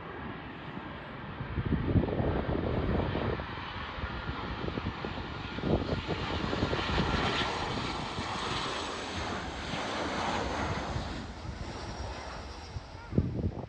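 Jet engines of a Boeing 747 cargo plane passing low overhead on its landing approach: a rushing engine noise that swells, is loudest around the middle and eases off near the end. A few sharp thumps stand out, the loudest near the end.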